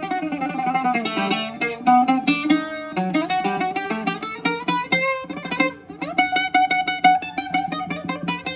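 Panayi six-string bouzouki played solo: quick melodic runs of picked notes with a slide down near the start, then rapid tremolo picking on held notes near the end.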